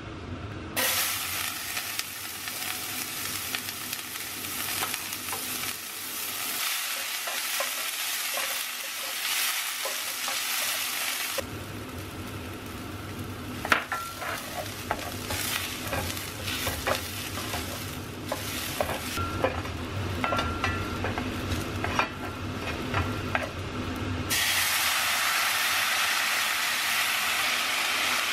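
Chopped onion sizzling in hot oil in a stainless steel pan, starting suddenly about a second in. Then a wooden spoon stirs and scrapes risotto rice as it toasts, with scattered clicks. Near the end there is a louder, steady sizzle once liquid is in the hot pan.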